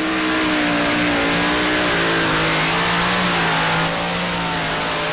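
Modified pulling tractor's engine held at high, steady revs, one sustained pitched note under a loud rushing hiss; the level eases slightly about four seconds in.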